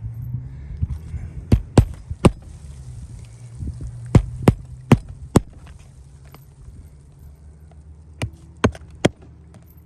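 Hammer driving roofing nails through asphalt shingles: ten sharp strikes in three quick runs of three or four blows each, over a steady low hum.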